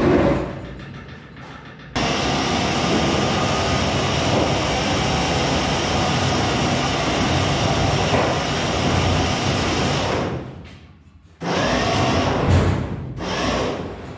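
Winch hauling a stripped Moskvich car body across a concrete garage floor: a steady harsh noise that starts abruptly about two seconds in and runs for some eight seconds, then a second short pull near the end. A clunk comes right at the start.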